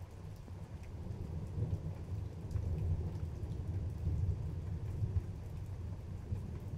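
Thunder rumbling low, swelling over the first few seconds and then slowly easing off, over rain falling steadily.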